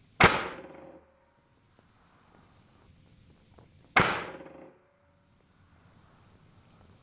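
Two shots, about four seconds apart, from a custom-built .22 calibre PCP air rifle firing 40-grain slugs at about 1000 feet per second, running off a connected air tank at 224 bar. Each is a sharp crack that dies away within a second.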